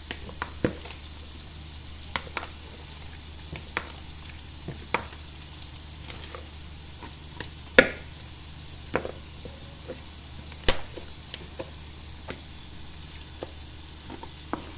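Scattered sharp clicks and knocks of a wooden spoon and a plastic bowl of soaked sotanghon noodles being handled, over a steady sizzle of frying. The loudest knocks come about 8 and 11 seconds in.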